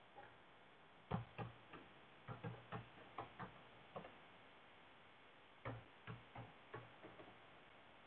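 Typing on a computer keyboard: faint, irregular keystroke clicks in two runs, with a pause of about a second and a half around the middle.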